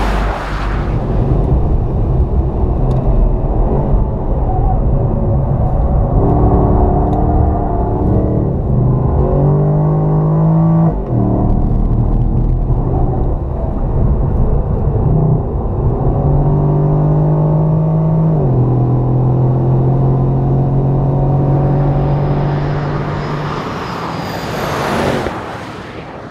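V8 performance sedan engine at full throttle on a race track. A pass-by comes right at the start, then the engine note climbs and drops sharply with gear changes and lifts, about 11 s and 18 s in. The sound fades away over the last few seconds.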